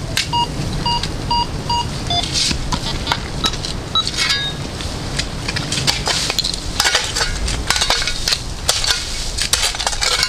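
A metal detector beeping in short tones at two pitches, about twice a second, for the first two seconds. After that come scattered clinks, knocks and scraping of scrap iron being dug out and handled.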